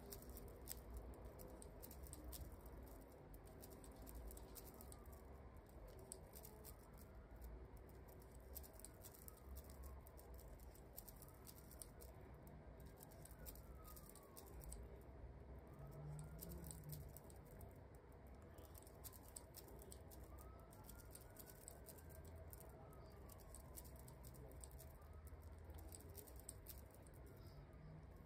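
Faint small clicks and light rustling of hand crocheting: a metal crochet hook and long fingernails ticking as yarn is drawn through the stitches, irregular and continuous.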